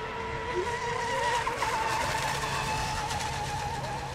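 Radio-controlled racing boats running at speed, their small engines giving a high, wavering whine at two different pitches, a little louder about a second in.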